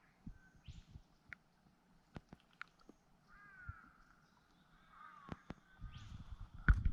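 A bird calling outdoors: a few faint, drawn-out, arching calls, with scattered light clicks. Near the end a low rumble swells up.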